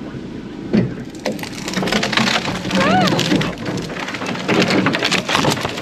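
Dry branches and scrub crackling, snapping and scraping along the side of a 4x4 truck as it pushes through fallen trees on a bush track. The crackle builds from about a second in, with a short squeal rising and falling about three seconds in.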